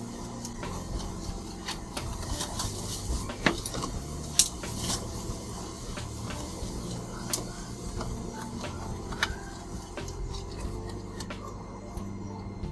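Irregular small clicks, taps and rubbing of hard laptop parts and tools being handled during a laptop fan replacement, over a steady low hum.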